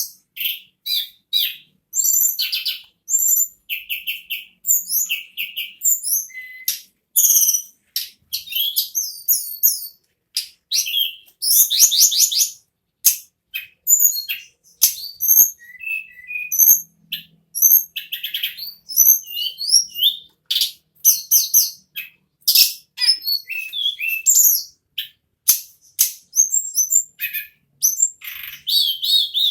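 Tledekan gunung (sulingan) songbird singing non-stop in a rapid, rolling stream of short high-pitched whistles, chirps and trills, with only brief pauses between phrases.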